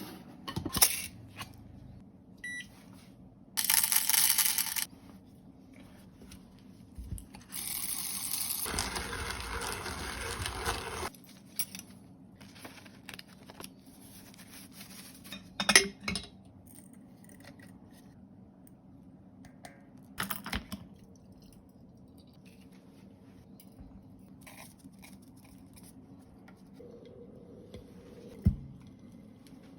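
Handling sounds from coffee brewing with a HARIO electric coffee siphon: scattered clinks and knocks of glassware and utensils, a short spell of hiss about four seconds in, a longer spell of rushing noise from about eight to eleven seconds, and a brief steady tone near the end.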